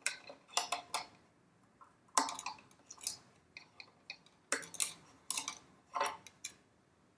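Irregular light clicks and taps from a slackened violin G string being worked free and pulled out of the violin, the string and its end knocking against the instrument.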